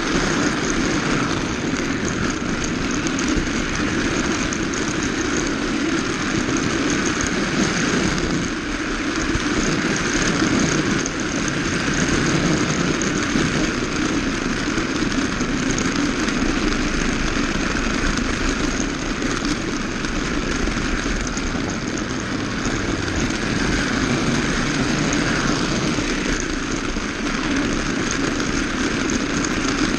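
Small electric motor of a battery-powered Magic Tracks RC car whirring steadily as it runs along plastic flex track, heard close up from a camera riding on the car.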